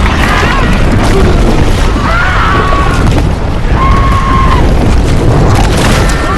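Dense film action soundtrack: a loud, continuous deep booming rumble under orchestral music, with held tones that bend in pitch.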